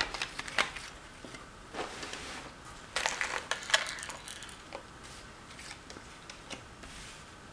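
Thick cardboard jigsaw puzzle pieces being handled and laid down on a table: scattered light taps and rustles, busiest about three seconds in.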